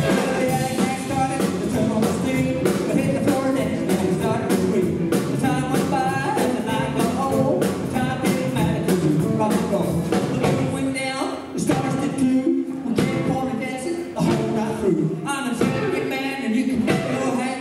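Live rockabilly band playing a song: a man singing lead over electric guitars, an upright double bass and a drum kit keeping a steady beat.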